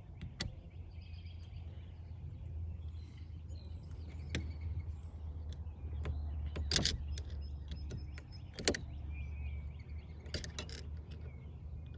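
Sharp metal clicks and taps, about half a dozen spread out, the loudest a little after the middle, from a screwdriver and snap ring being worked onto the steering column shaft. A steady low hum runs underneath.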